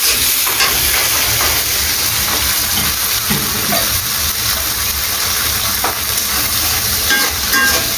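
Spiced onion-tomato masala paste sizzling steadily in oil in an aluminium pot while a steel spoon stirs it, the spoon scraping the pot now and then. The paste is being fried down until the oil separates.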